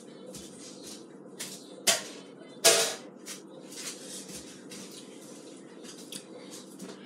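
Scattered light knocks and clicks of small things being handled on a tabletop, the two loudest about two and three seconds in, over a faint steady hum.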